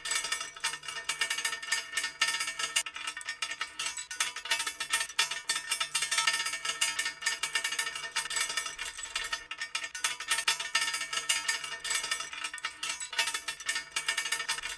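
Heavy metal chain pulled and dragged, its links clinking and jangling against one another in a continuous, uneven rattle.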